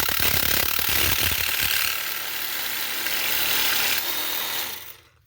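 Bosch GST 12V-LI cordless jigsaw running and cutting, with a steady mechanical rattle from the reciprocating blade. It winds down and stops near the end.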